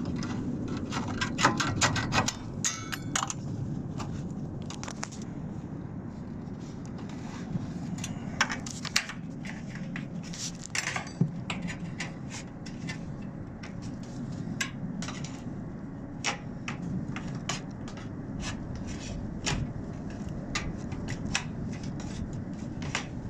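Sheet-metal gable trim being worked onto a standing-seam roof panel: scattered sharp metal clicks, taps and brief scrapes over a steady low rumble.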